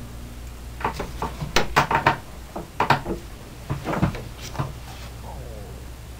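A run of sharp metal clicks and knocks, loudest about one and a half to three seconds in, as the parts of a Corbin bench swaging press and its die are handled.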